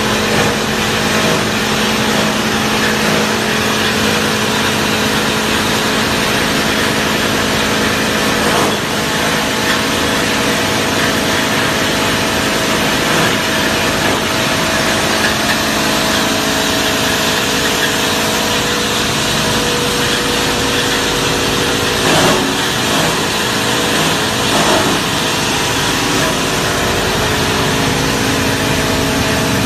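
QD-600S copper wire granulator line running, with motors and the chopping of scrap cable making a loud, continuous mechanical din over a steady hum. A few short louder knocks come about nine, twenty-two and twenty-five seconds in.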